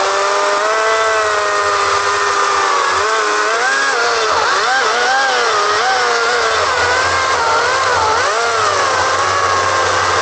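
Battery-powered 40-volt electric chainsaw running with a steady whine. About three seconds in its pitch starts to dip and waver over and over, as the motor takes load on the chain, and it steadies again near the end.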